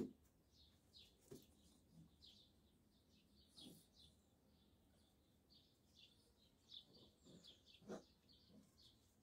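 Small birds chirping faintly, many short quick chirps over and over, with a few soft thumps, the clearest near the end.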